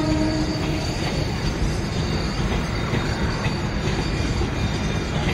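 Loaded freight train wagons rolling past: a steady heavy rumble with wheels clicking over rail joints and a faint high wheel squeal. A low held tone, likely the tail of the locomotive's horn, stops about half a second in.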